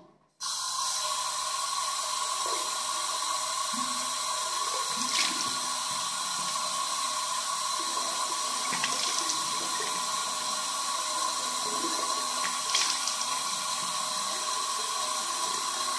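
Bathroom sink tap turned on and running steadily, a hiss with a steady tone, while hands splash water on the face a few times.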